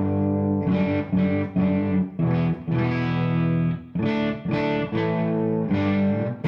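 Electric guitar, a Gibson Les Paul played through a JMI Vox AC30/6 Top Boost piggyback amp into a cab loaded with Celestion Blue Alnico speakers. Chords and single notes are picked about twice a second and ring on between strokes, giving the classic 60s British tone.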